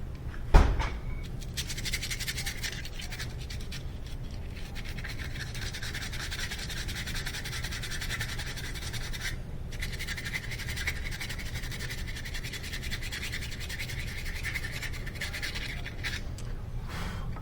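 Hand sanding with coarse 60-grit sandpaper on a brake part to flatten its surface: rapid rubbing, scratching strokes in two long runs with a brief pause between them. A single sharp knock comes just before the sanding starts.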